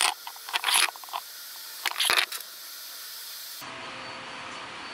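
Hollow 3D-printed PLA screw toys being handled: a few short plastic scraping and rattling bursts in the first two seconds or so. From about three and a half seconds in, only a steady low hiss.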